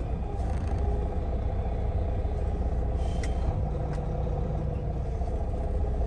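Volvo VNL semi-truck's diesel engine running steadily, a low rumble heard from inside the cab as the tractor rolls slowly across a yard.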